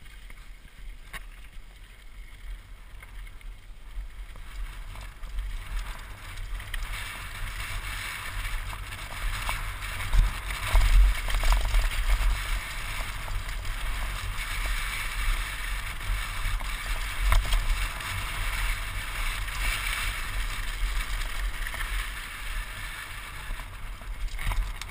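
Wind rushing over a helmet-mounted action camera and mountain-bike tyres rolling on dirt and gravel, rising as the bike picks up speed from about six seconds in, with a few knocks from bumps in the trail.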